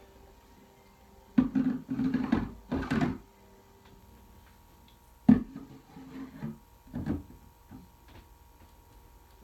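Objects being handled and moved about on a shelf: a burst of rummaging and clatter a second or so in, then a sharp knock of something set down, with smaller knocks after it.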